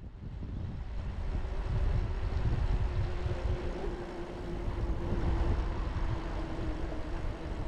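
Wind noise buffeting the microphone of a camera on a moving bicycle, mostly a deep rumble, with tyre noise from the paved path and a faint steady hum in the middle.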